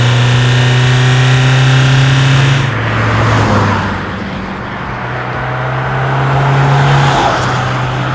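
Toyota RAV4 II's 2.0 16V four-cylinder turbodiesel engine running, its pitch rising slowly. About three seconds in the sound changes abruptly and drops in level, then swells again and falls away near the end.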